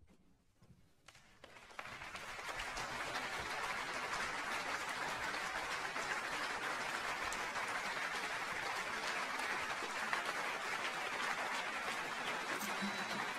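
Applause from a crowd, building over the first two seconds and then holding steady.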